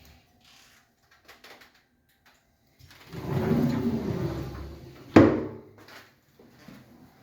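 A built-in cabinet panel sliding along its runners for about two seconds, then stopping with a sharp knock against its stop, after a few light clicks.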